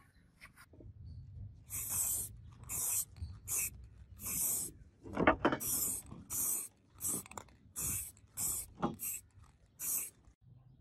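Clear paint sprayed from an aerosol can onto a wooden sword handle in about a dozen short hissing bursts, each under a second long.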